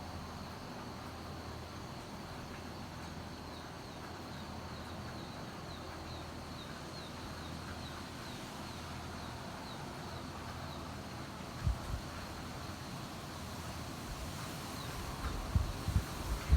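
Steady hiss of hurricane wind and rain, with gusts buffeting the microphone once about two-thirds of the way in and repeatedly near the end. A faint high chirp repeats steadily in the background.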